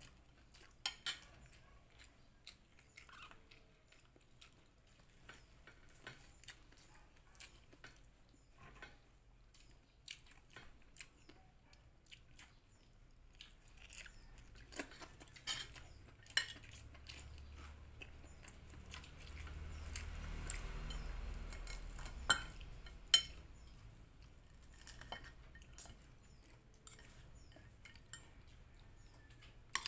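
Fork and spoon scraping and clicking against a plate, with scattered sharper clinks and close chewing between them.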